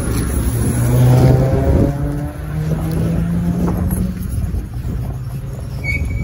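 Tatra T6B5SU tram moving along a stop: its electric traction motors whine in changing pitch for the first couple of seconds, then hold a steady low hum for a couple of seconds, over the rumble of the running gear.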